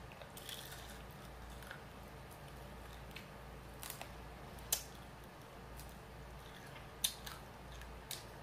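Close-miked eating of a fried chicken wing: crisp bites and mouth smacks as meat is pulled off the bone, with a few sharp clicks scattered through, the clearest about halfway and near the end.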